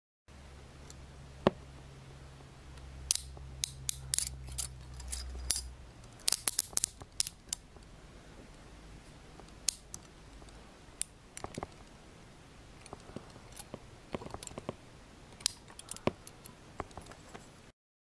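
Steel handcuff jaw (Szco Supplies Scorpion 220041-SL) swung through its single-lock ratchet, giving sharp metallic clicks: a fast run of clicks a few seconds in and more scattered clicks through the second half as the jaw is tightened.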